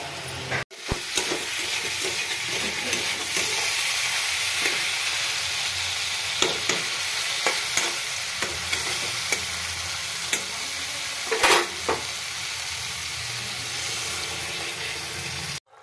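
Cauliflower and potato curry frying in a metal karahi, a steady sizzle, while a metal spatula stirs and scrapes the pan in short strokes, one louder scrape near the end.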